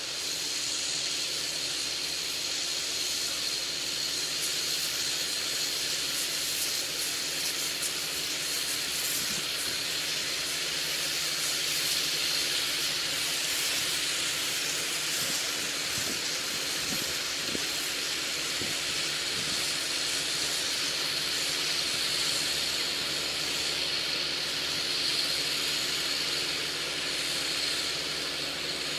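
Steady high hiss over a faint, even low hum from a tractor working far off across the field.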